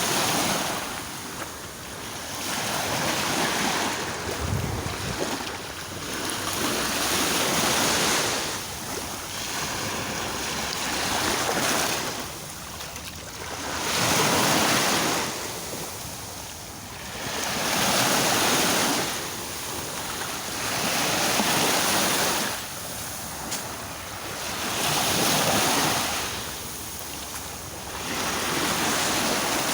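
Sea waves breaking on the shore, the surf rising and falling in a swell roughly every three to four seconds.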